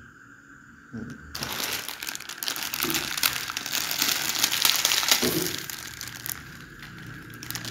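Plastic instant-noodle packet crinkling as it is handled and tipped to drop the noodle block into a pot, starting about a second in and easing off near the end.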